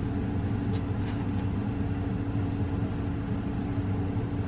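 Steady low mechanical hum, with a few faint light clicks about a second in.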